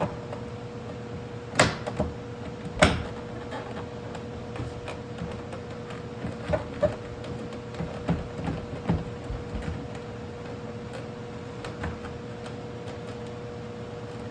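Plastic body panel on a Sea-Doo GTI being worked loose by hand: two sharp plastic clicks about two and three seconds in, then a run of lighter knocks and rattles as it is wiggled against its retainer clips. A steady low hum runs underneath.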